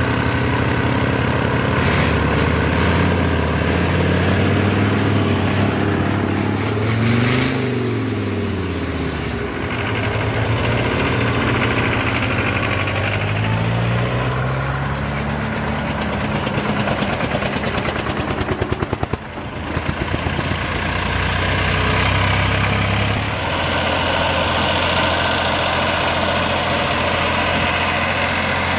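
Vintage vehicle engines running. One is revved up and down several times in the first ten seconds, then they settle to a steady idle. About two-thirds of the way through the running turns briefly uneven and dips before steadying again.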